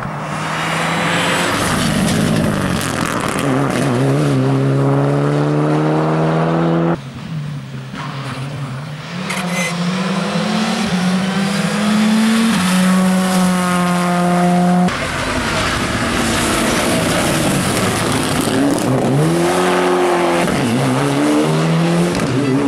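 Rally cars passing flat out one after another: a Mitsubishi Lancer Evolution IX and then a Škoda Fabia R5, their turbocharged four-cylinder engines revving hard, rising in pitch through each gear and dropping at the shifts. The sound breaks off abruptly twice as one car gives way to the next.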